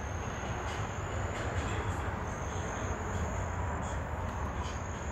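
Steady outdoor night ambience: a low rumble with a thin, continuous high insect trill running through it.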